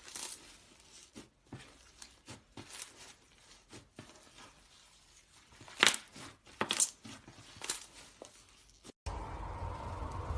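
Slime being squeezed and pressed by hand, giving scattered crackles and pops, the loudest a little past halfway. About nine seconds in it cuts suddenly to a steady hiss with a low rumble.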